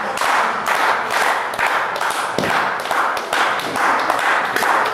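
Wrestling crowd clapping in unison, a steady rhythm of about three claps a second.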